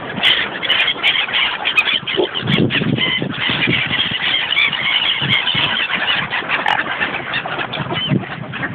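A feeding flock of seagulls and swans calling over one another: dense, high squealing calls throughout, with some lower calls mixed in.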